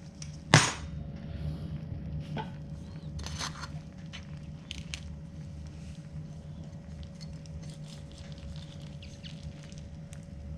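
Kitchen handling sounds: one sharp knock about half a second in, then a few lighter clicks and taps, over a steady low hum.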